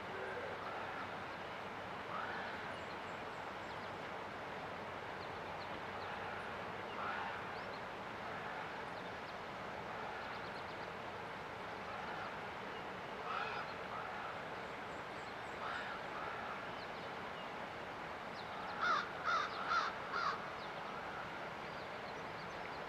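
Crow cawing, a few scattered calls and then four loud caws in quick succession near the end, over the steady rush of the river.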